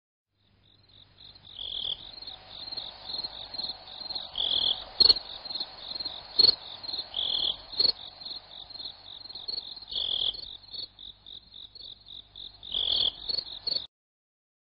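Insects chirping in a fast, even pulse, with a louder, lower chirp about every three seconds and a few sharp clicks. It fades in over the first second or two and cuts off suddenly near the end.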